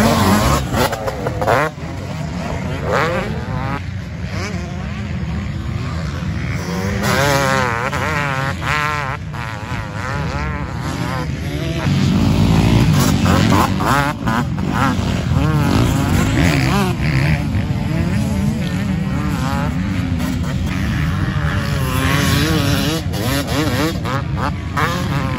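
Several motocross bikes riding a dirt track, their engines revving up and down over and over as riders accelerate, shift and brake through the turns, with more than one bike often heard at once.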